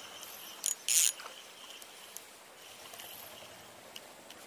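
Outdoor insect calls, a faint high chirring over a steady background hiss, with two short sharp noises about a second in.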